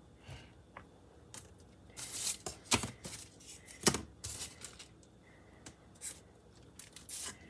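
Parchment paper crinkling and rustling while salt dough is cut out and the leftover dough is peeled away from around the cut-outs: a run of short, sharp crackles, the loudest about four seconds in.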